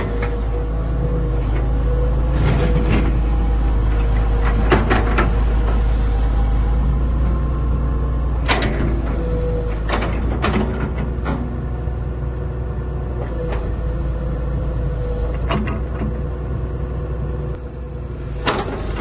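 Excavator engine running steadily with a constant low rumble and a held tone, with sharp knocks at irregular intervals.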